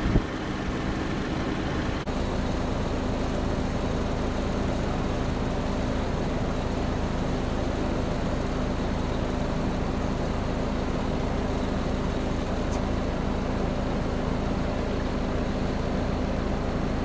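An engine running steadily at idle, a low, even hum with a brief thump at the very start.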